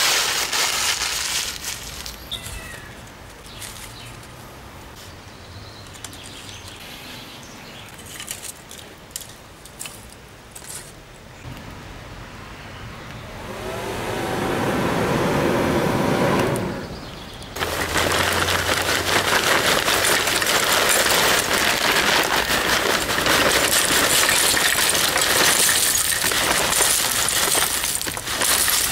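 A forge fire being lit: faint crackling of burning kindling, then, from about halfway in, a loud steady rush of air being blown through the pipe into the firepot, with a motor whine rising as the blower starts.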